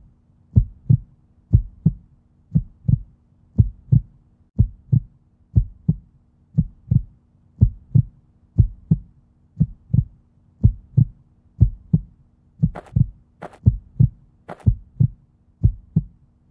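Heartbeat sound effect: a steady double thump, lub-dub, about once a second, over a faint steady hum. A few sharper clicks come in about three-quarters of the way through.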